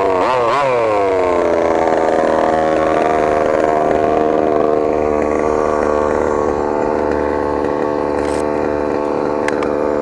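Small two-stroke petrol engine of a 1/5-scale Redcat MT RC monster truck, revved in two quick blips, then falling back to a steady idle about a second and a half in.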